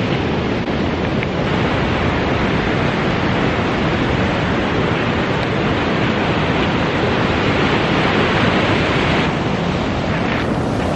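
Pacific surf breaking and washing up a sand and pebble beach in a steady rush, with wind buffeting the microphone.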